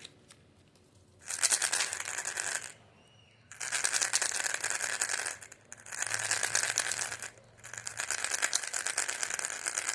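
A packet of Gems candy-coated chocolates being handled, giving four bursts of crinkling, rattling noise, each lasting about one and a half to two and a half seconds, with short pauses between them.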